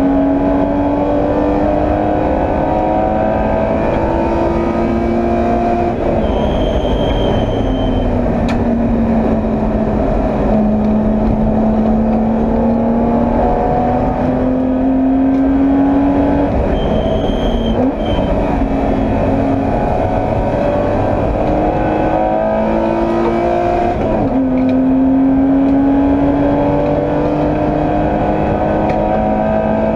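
BMW E30 325i's 2.5-litre straight-six race engine at full load, heard onboard. Its pitch climbs through the revs and drops at each gear change several times, with one long, slower pull in the middle. Brief high tones come three times.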